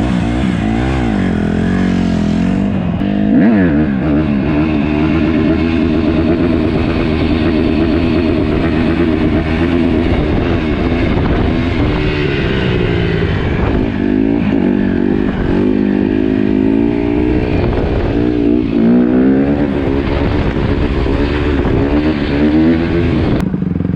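A 150cc dirt bike engine being ridden, its pitch rising and falling again and again as the throttle is opened and closed.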